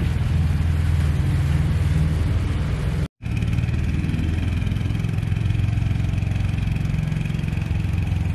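Steady low rumble of movement along a road. It drops out for a moment at a cut about three seconds in, and after that a faint high steady whine joins it.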